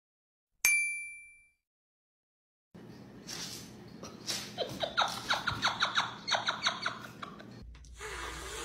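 A short bell-like chime from a logo transition card rings out and fades. After a silent gap comes a quick run of short squeaks and clicks, several a second.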